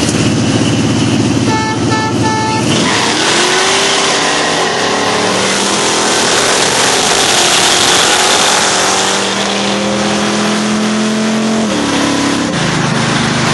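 Chevy Nova street car's engine running, with three short horn honks about two seconds in; then the engine is given full throttle and its pitch climbs steadily for about nine seconds in one long pull before dropping sharply near the end.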